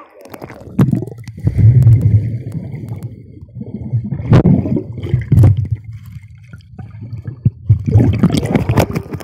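Pool water sloshing and gurgling against a homemade waterproof camera housing held underwater. It is heard muffled and low, coming in several surges as a swimmer stirs the water.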